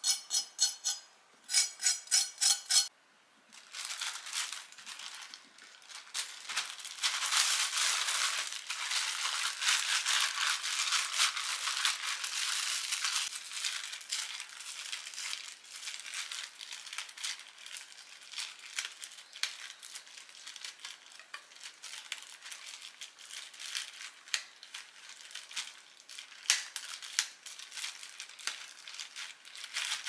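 Thin plastic bag of cut cucumbers crinkling and rustling as it is shaken, rubbed and twisted shut with a rubber band, loudest a few seconds in. In the first three seconds a knife chops on a wooden cutting board, about three even knocks a second.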